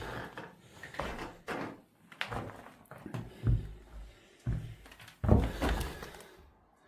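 Irregular knocks and thuds in a small room, about ten over several seconds, the loudest a heavy thud about five seconds in.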